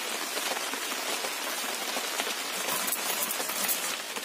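Stone roller rubbed back and forth over a stone grinding slab (shil-nora), coarsely crushing dry whole spices and dried red chillies: a steady gritty scraping and crunching.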